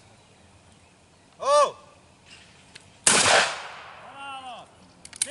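A short shouted call about a second and a half in, then, a second and a half later, a single over-and-under shotgun shot, a sharp crack with a fading echo tail. This is the shooter calling for the clay target and firing at it.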